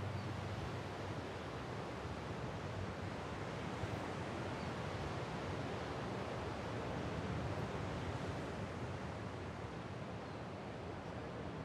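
Steady rushing seaside ambience of surf and wind, with no music, easing off slightly near the end.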